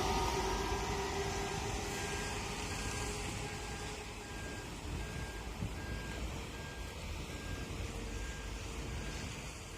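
Suburban electric train rumbling away and fading into the distance, with a high electronic beep repeating about twice a second throughout.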